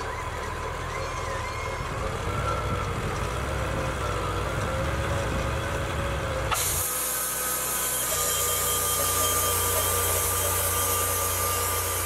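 Portable band sawmill's engine running steadily. About halfway through the sound shifts abruptly and a steady high hiss joins it.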